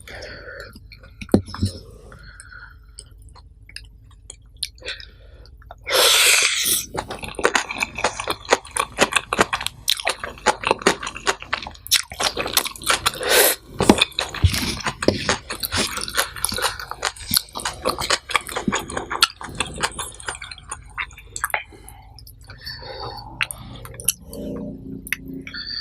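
A person eating nasi pecel close to the microphone: chewing with many quick, wet mouth clicks. There is a short loud burst of noise about six seconds in, and the chewing is busiest for the next dozen seconds before it eases off.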